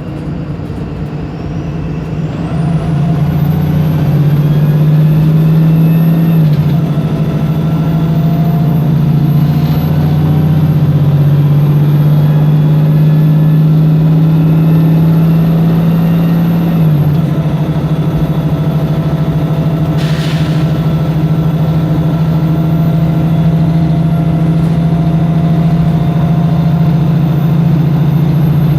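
Wright Pulsar single-deck bus's diesel engine accelerating hard, heard from inside the bus. The revs build, drop sharply at a gear change about six seconds in, build again, and drop at a second change around seventeen seconds, then the engine pulls steadily. A high whine rises as it gets going, and a short hiss of air comes about twenty seconds in.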